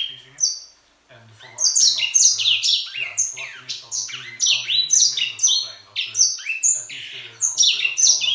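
Caged grey singing finch singing: a fast, tumbling run of quick falling whistles. The song breaks off briefly about a second in, then runs on almost without pause.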